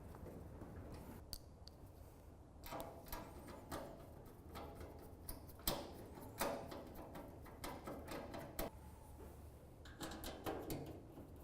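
Irregular light metallic clicks and taps from bolts being driven into the captive nuts of a barbecue's steel front support bar with a Phillips screwdriver. There is one sharper click a little before the middle.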